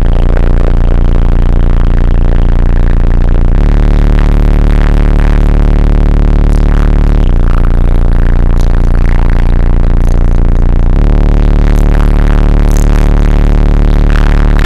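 Bass-heavy electronic music played very loud through a car audio system with subwoofers in an enclosure and door speakers. The deep bass note changes about every three and a half seconds.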